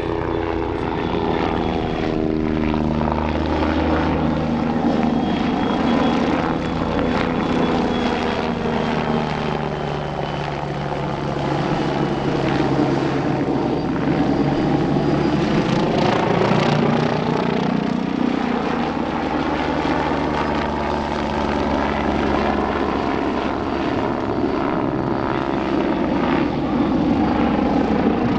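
Bölkow Bo 105 C helicopter flying aerobatic manoeuvres: steady rotor and turbine noise with a faint high whine, its pitch sliding down and back up several times as the aircraft loops and rolls.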